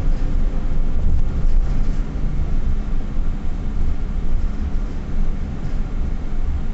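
Vehicle's engine and tyres heard from inside the cabin while driving slowly: a steady low rumble.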